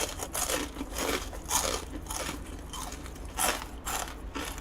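Close-up crunching as a person bites into and chews a crisp deep-fried gimmari (seaweed roll stuffed with glass noodles), with a crunch about twice a second.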